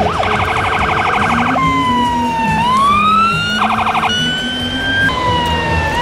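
Electronic fire-truck siren switching patterns: a fast pulsing yelp, then slow falling and rising wails, a short second burst of fast pulses just past the middle, and more slow wails near the end.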